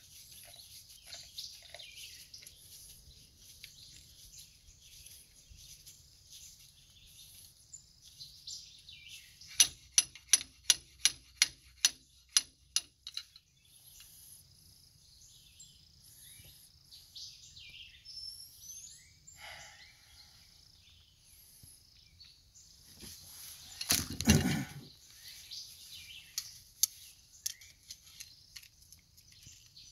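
Birds chirping in the background. About ten seconds in comes a quick, even run of about a dozen sharp clicks, roughly three a second, from work on a dump-trailer hydraulic cylinder ram. A louder, deeper thump follows about five seconds before the end.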